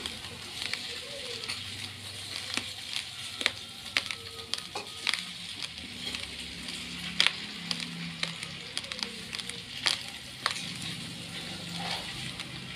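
Raw rice grains being chewed: irregular sharp cracks over a steady crackle as the hard grains break.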